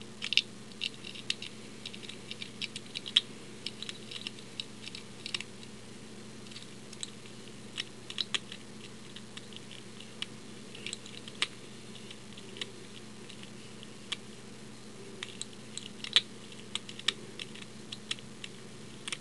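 Offset diamond lock pick and tension wrench working the pins of an old Yale pin tumbler lock: irregular small metallic clicks and ticks, a few at a time with short pauses.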